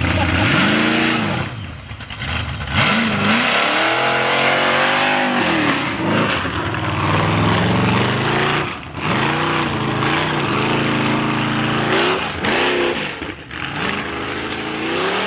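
Off-road race vehicle's engine revving hard and falling back, over and over, as the throttle is worked through a slalom course. The pitch rises again near the end.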